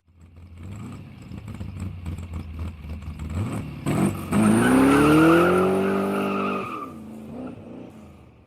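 A car engine runs with a low rumble, then revs up with a rising pitch about four seconds in. It holds the high note for a couple of seconds and fades out near the end.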